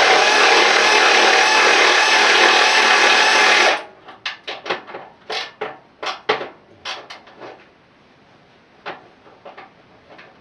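Air impact wrench running on a nut with a loud, steady sound, cutting off suddenly about four seconds in. A string of light metallic clicks and taps from handling the socket and tools follows.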